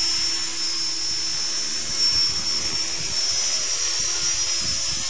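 Esky Honey Bee King 2 electric RC helicopter in flight: a steady high-pitched whine from its electric motor and gears over the whir of the rotor blades.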